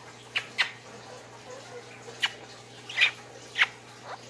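Quick kisses pressed onto a guinea pig's fur: five short squeaky lip smacks at uneven intervals.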